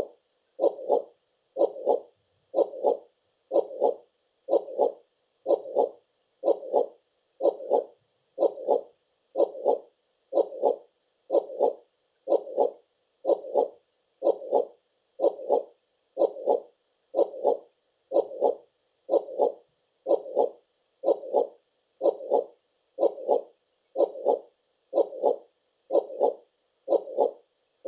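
Heartbeat sound: a steady, even run of soft double thumps, about one beat a second.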